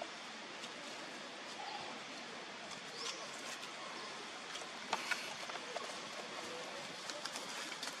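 Scattered light crackles of dry leaf litter as long-tailed macaques move over the ground, over a steady outdoor hiss. A short, high, rising chirp comes about three seconds in.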